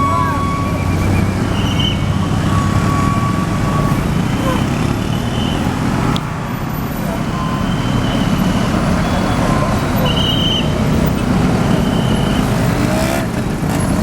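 Tour bus engine running amid road noise, with short high telolet horn tones sounding on and off.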